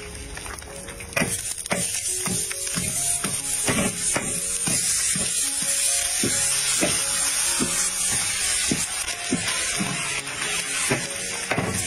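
Corn kernels sizzling in hot oil in an iron wok as they are stirred with a wooden spatula and start popping, over background music.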